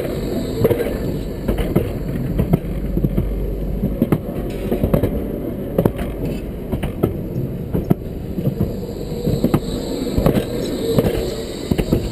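Light-rail tram passing at close range, heard from rail level: its steel wheels rolling on the rail with a low rumble and frequent sharp clicks.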